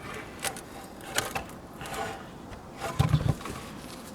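Handling noise: a few light knocks and scrapes as a freshly milled board is turned over, with a heavier low bump about three seconds in.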